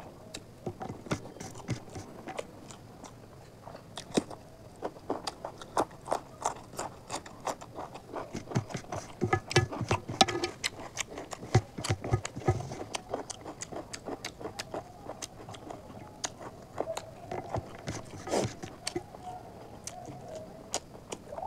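Close-miked chewing of chicken curry and rice eaten by hand: irregular wet smacks and clicks, busiest and loudest around the middle.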